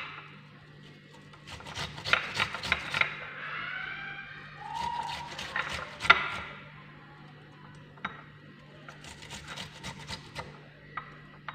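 Red onion being grated on a hand grater with a metal blade, coming as three bursts of quick rasping strokes. Between the first two bursts there is a brief pitched, gliding sound.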